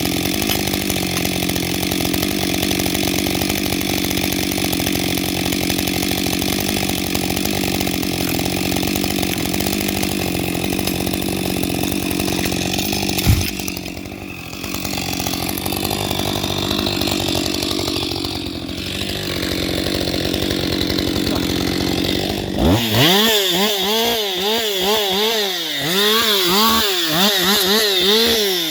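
Husqvarna 560XP two-stroke chainsaw cutting steadily through wood, with a sharp knock about halfway through. In the last few seconds the engine is revved up and down repeatedly, then drops back.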